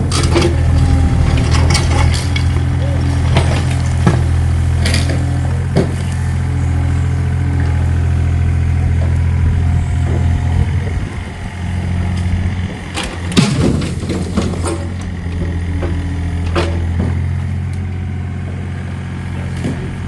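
A motor running steadily with a low hum, with scattered knocks and clanks of work over it. The hum drops briefly about halfway through.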